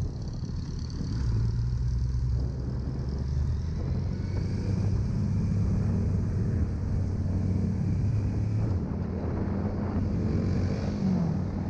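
Motorcycle engine running steadily on the move, its tone shifting about nine seconds in.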